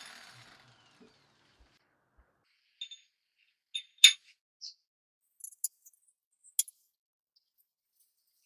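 Scattered metal clinks and clicks of steel bolts and parts being handled and set against a lathe's spindle flange and chuck, the loudest a sharp clink about four seconds in.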